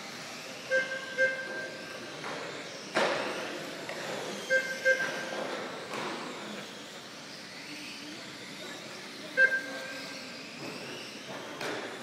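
Brushless electric RC touring cars whining around the track, their motors rising and falling in pitch as they accelerate and brake. Short electronic beeps from the lap-counting system, loudest of all, come as a pair about a second in, another pair about four and a half seconds in and once more near the end. A single sharp knock about three seconds in.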